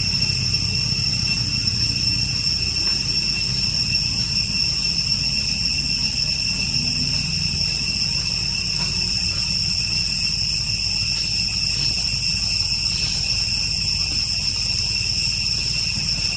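Steady, unbroken high-pitched buzzing of insects over a low rumble.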